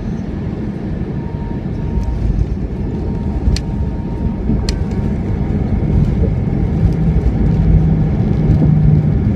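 Airliner cabin noise during the landing roll on the runway: a loud, steady rumble that grows louder over the second half, with a low hum joining near the end. Two sharp clicks come in the middle.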